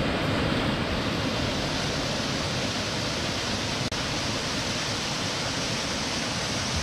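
Small woodland waterfall cascading over rocks into a stream pool: a steady rush of falling water, with a momentary gap about four seconds in.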